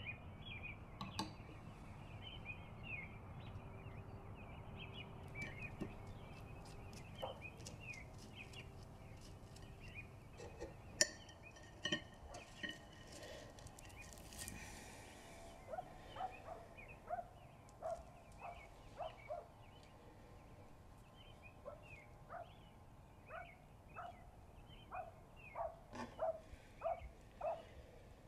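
Faint bird calls, short chirps repeating about once a second through the second half. Scattered light clicks and taps of a knife and crockery on a breakfast tray come in between.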